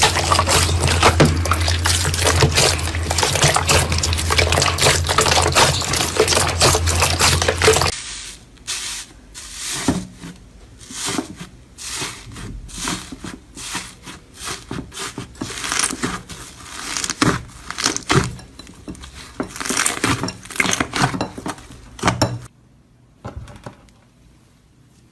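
Slime being squeezed and worked by hand, with wet squishing, crackling and popping. The first part is a dense crackle over a low hum; it cuts abruptly to sparser squishes and pops about eight seconds in, and these stop shortly before the end.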